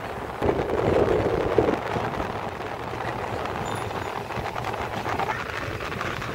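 Steady running noise of a moving vehicle, heard from inside, louder for a second or so near the start.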